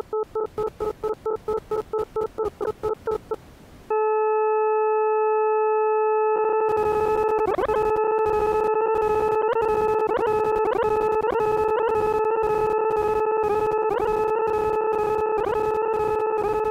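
Desmos graphing calculator sonifying a graph: a buzzy electronic tone pulsing about six times a second, breaking off about three and a half seconds in, then held steady from about four seconds. From about six and a half seconds in, rapid crackling clicks join it and the tone wavers.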